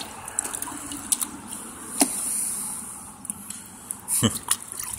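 Scattered clicks, rustles and knocks of a gloved hand and phone brushing against dry branches, with a sharp click about two seconds in and a heavier knock near the end.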